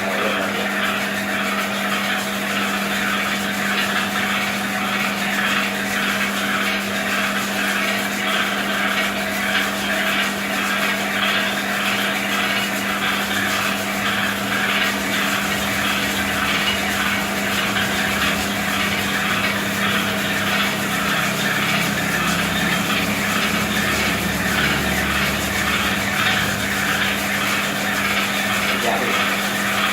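Raffia rope winding machine running steadily: a constant motor hum with a fast, even whirring over it. A deeper rumble joins in for a few seconds about two-thirds of the way through.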